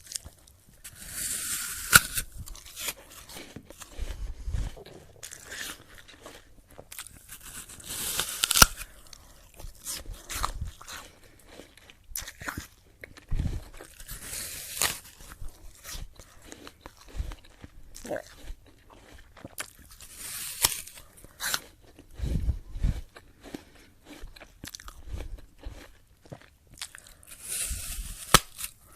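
Someone biting into a very crunchy apple and chewing it. A loud crunching bite with a sharp crack comes about every six or seven seconds, with smaller crunching chews in between.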